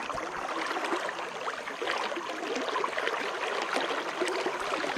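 River water running and trickling: a steady rush with many small splashes.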